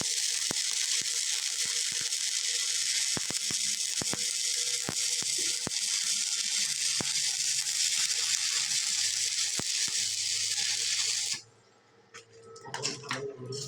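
Electric welding arc hissing and crackling steadily, with scattered sharp pops, cutting off suddenly about eleven seconds in as the arc is broken. A few light metal clinks follow near the end.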